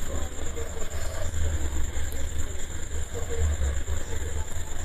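Low, uneven background rumble, with a faint high steady tone above it.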